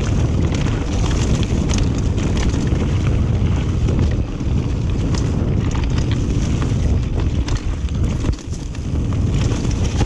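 Wind rushing over the microphone of a mountain bike descending dirt singletrack, mixed with tyre rumble on the trail and frequent short knocks and rattles from the bike over rough ground.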